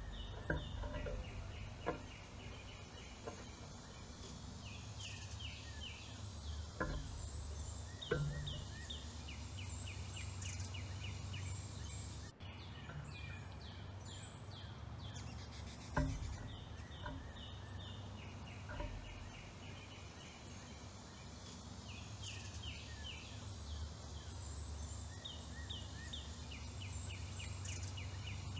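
A songbird singing short, quick runs of repeated notes every few seconds, over a steady low outdoor rumble. A few sharp knocks cut in, the loudest about halfway through.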